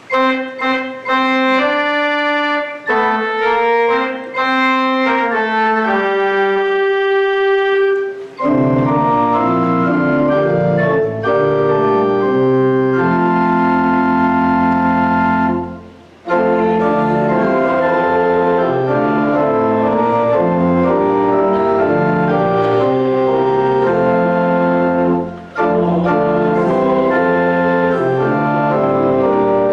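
Church organ playing a hymn introduction: a single melody line for the first several seconds, then full chords with a bass line come in, pausing briefly twice between phrases.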